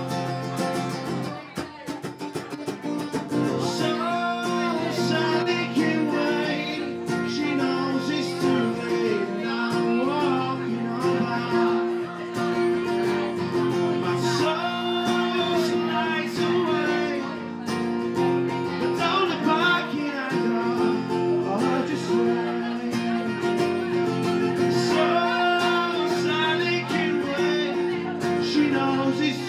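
Acoustic guitar strummed steadily in a live song. A man's singing voice comes in over it from about three seconds in.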